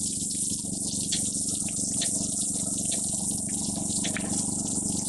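Bacon and sliced smoked sausage sizzling on a hot Blackstone flat-top griddle: a steady high hiss with scattered small pops and crackles, over a low steady hum.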